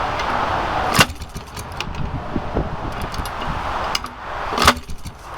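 Cold Maytag Model 72 twin-cylinder two-stroke engine being kick-started for its first run after restoration. It is kicked over twice; each time the engine spins with a rising whir that ends in a sharp knock, with light clicks in between. It is not yet running on its own.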